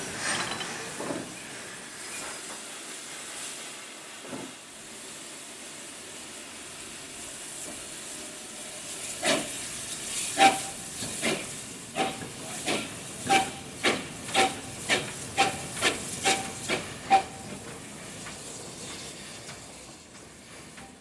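Steam hissing from an Austerity 0-6-0 saddle tank locomotive, then its exhaust beats starting up about halfway through: slow, sharp chuffs that come quicker as it gets the shunted rake of locomotives under way, then fade.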